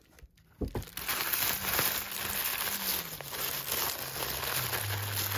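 Tissue paper rustling and crinkling as it is pulled out of a paper gift bag, starting about a second in and running on as a dense, crackly rustle.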